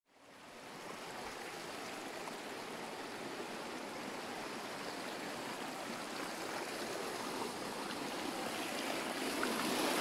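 Water rushing over rocks in a small stream cascade, a steady rush that fades in over the first second and grows slowly louder.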